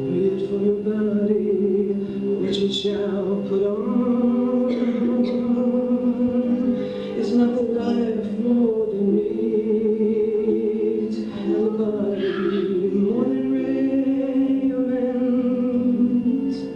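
Live song with singing: voices on long held notes over sustained chords, the harmony changing every few seconds.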